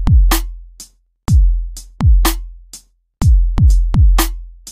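Electronic intro music built on a drum machine beat: deep kick hits that drop in pitch into a held bass, with sharp snare-like hits between them. The beat stops dead for brief gaps between phrases, about a second in, near three seconds, and at the end.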